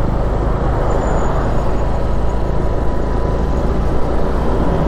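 Honda scooter engine running steadily at low speed under the load of pushing a second scooter that is out of fuel, with a steady low rushing noise over it.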